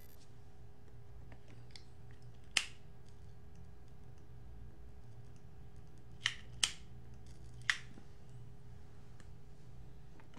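Four sharp clicks over a faint steady hum: one about two and a half seconds in, then three between about six and eight seconds. They are handling noise from a tobacco pipe being held and moved close to the microphone.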